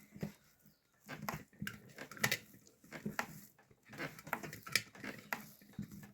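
Bread dough being kneaded by hand on a floured counter: irregular slaps and squishes of the dough, a few a second.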